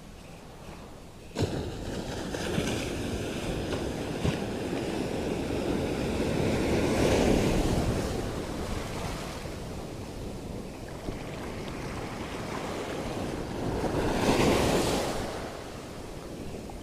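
Sea waves washing onto a rocky shore, swelling loudest twice, about a third of the way in and again near the end, with wind buffeting the microphone.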